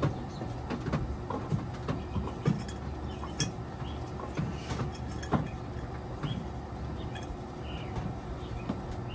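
Short clicks and light knocks of a clear plastic bottle being handled against a small laundry machine, over a steady low hum.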